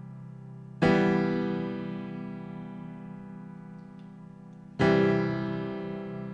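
Keyboard music: two chords struck about four seconds apart, each ringing out and slowly fading over a held, even tone.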